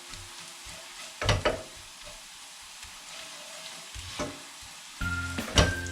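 Crushed garlic sizzling in hot oil in a frying pan as it browns, with a utensil knocking against the pan twice. Background music comes in near the end.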